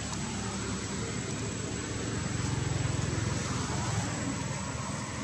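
Low, steady rumble of a motor vehicle engine, swelling about two seconds in and easing after four.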